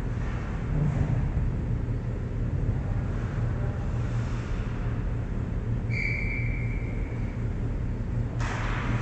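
Steady low rumble of an indoor ice arena heard from behind the net. About six seconds in, a distant referee's whistle blows once for about a second and a half, and a hiss starts just before the end.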